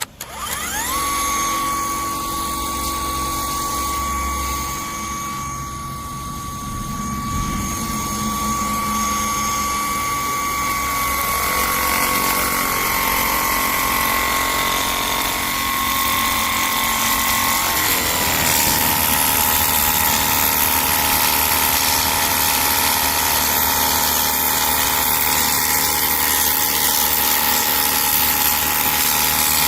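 Battery-powered motor and pump of a cordless pressure washer starting up with a whine that rises quickly to a steady high pitch, then running continuously; the pitch drops a little about two-thirds of the way through.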